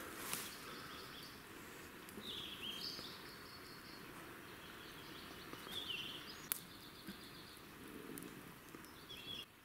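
Faint bird song: short, high, falling phrases repeated every couple of seconds over a quiet background hiss, with a sharp click about six and a half seconds in.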